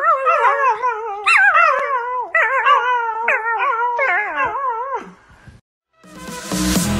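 Young yellow Labrador-type puppy howling in a series of high, wavering, warbling calls that stop about five seconds in. Electronic music with a steady beat starts near the end.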